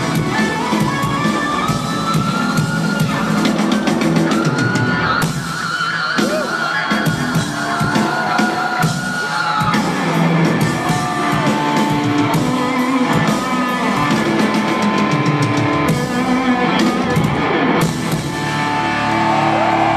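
Live hard-rock trio playing through a concert PA: electric guitar, bass guitar and drums, with long sustained guitar notes that bend and slide in pitch over the band.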